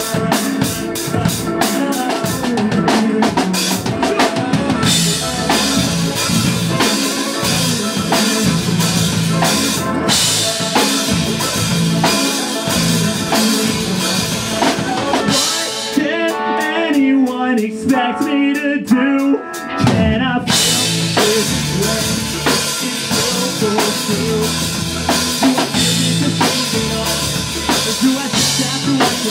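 Pop-punk band playing live: drum kit with bass and guitars in an instrumental section of a song. About halfway through, the drums drop out for roughly four seconds, leaving a melodic line alone, then the full band comes back in.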